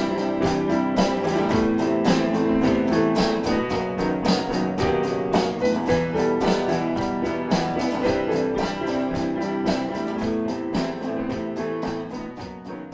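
Background music played on guitar, a quick run of plucked notes, fading out near the end.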